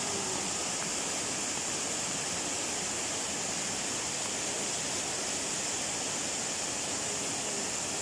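A small waterfall cascading over rocks: a steady rush of falling water.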